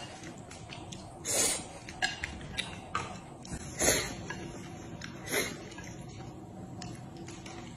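Eating with chopsticks: chopsticks click against plates and bowls, and three louder, brief noisy mouthfuls come about a second and a half, four and five and a half seconds in.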